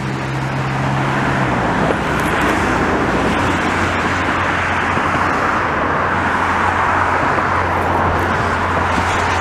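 Steady road traffic noise: a continuous roar of passing vehicles, with a low engine drone setting in about a second and a half in.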